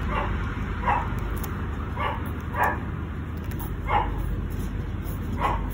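Pomeranian puppy giving about six short yips at irregular intervals.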